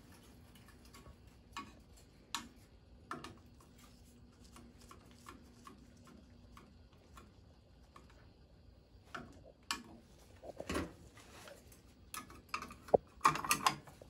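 Scattered small clicks and scrapes of gloved hands working wires and a screwdriver inside a sheet-metal electrical box, with a louder cluster of clatter near the end.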